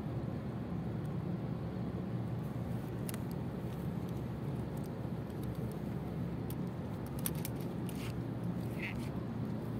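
Steady low rumble of harbour ambience: wind and water along the seawall with distant ship and tug engines. A few faint clicks come in the second half, and a brief high chirp near the end.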